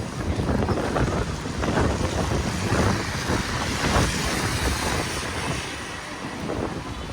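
City street noise with passing traffic, with wind gusting on the microphone.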